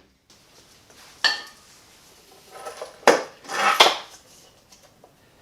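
Loose metal hardware clanking and rattling on a hard surface: one sharp ringing clank about a second in, then a louder flurry of clanks and rattles around three to four seconds in.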